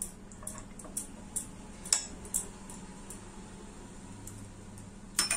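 A spoon clinking and scraping against a glass bowl while mixing chopped egg and vegetables, a few scattered clicks with the loudest near the end, over a low steady hum.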